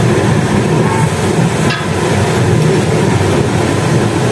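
Toyota Land Cruiser's engine idling, heard from beneath the car in a tiled service pit as a steady, rattly running noise, with a light click about a second and a half in.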